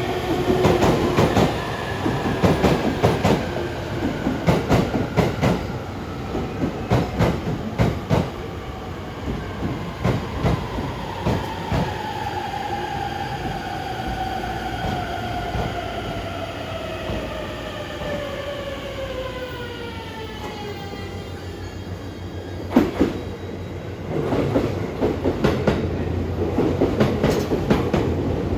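E257 series electric train running through a station: its wheels clatter over the rail joints in quick clickety-clack runs. Over the middle of the pass a drawn-out whine slides slowly down in pitch. A single sharp knock comes near the end, and the joint clatter starts up again after it.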